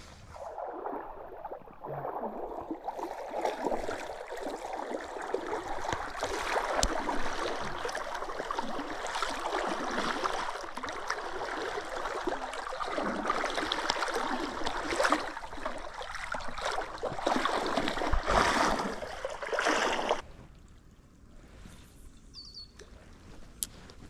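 Creek water rushing and sloshing close to the microphone, full of small splashes and crackles, for about twenty seconds, then falling away sharply to quiet, with a short bird chirp near the end.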